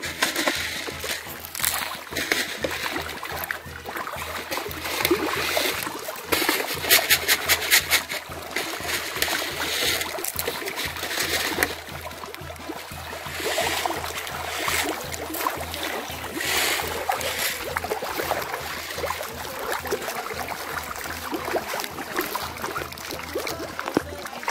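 Water splashing and churning in irregular bursts as a crowd of farmed mojarra (tilapia) thrash at the surface of a pond, loudest about six to eight seconds in.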